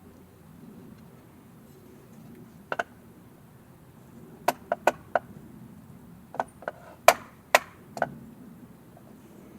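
A series of about eleven sharp wooden knocks and taps, irregularly spaced: a pair, then a quick run of four, then five more spread out near the end. The knocks fit hand tools and wooden parts being handled and tapped on a workbench.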